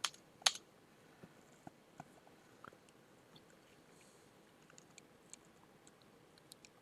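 Two computer keyboard keystrokes about half a second apart, logging in, then only faint scattered ticks and clicks over quiet room tone.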